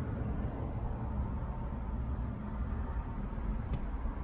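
Steady low rumble of outdoor background noise, with a few faint high chirps between one and three seconds in.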